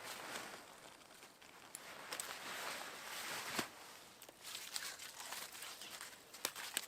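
Rustling and crinkling, with a few sharp clicks and knocks about two, three and a half, and six and a half seconds in.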